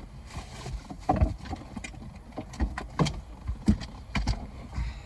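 Irregular clicks and knocks of steering-column parts being handled and fitted by hand, about ten in all.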